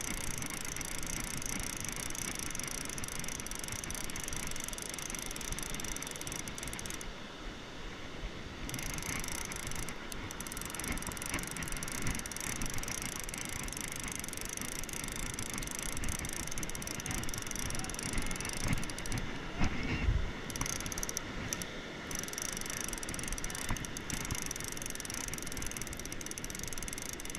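Fishing reel being wound steadily with a blacktail on the line, its gears whirring and clicking, with two brief pauses in the winding.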